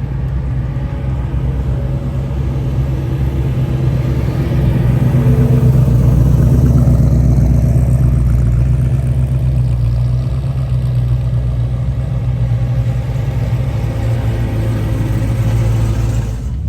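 Car engine running steadily with a deep rumble, getting louder about five seconds in and easing off again.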